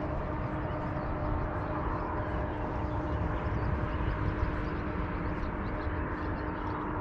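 Steady outdoor background rumble with a constant low hum running through it, and a few faint high ticks in the second half.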